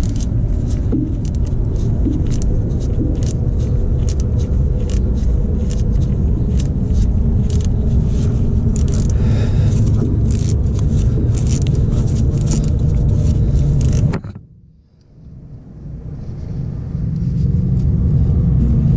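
A loud, steady low rumble, with many small irregular clicks and knocks from gloved hands and tools working on a hose clamp and fittings under a truck. About fourteen seconds in, the rumble and clicking stop suddenly, and the rumble then slowly builds back.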